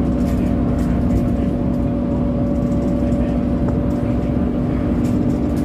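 Interior of a Euro 3 Dennis Dart single-decker bus heard from the rear: the engine running steadily with a constant hum, and the cooling fan hoovering nonstop because of the heat.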